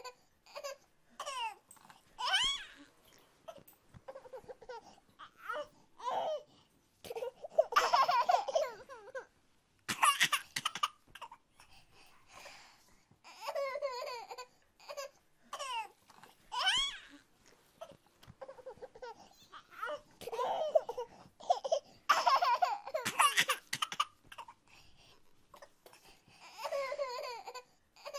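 A toddler babbling and laughing in short high-pitched bursts, with brief pauses between them.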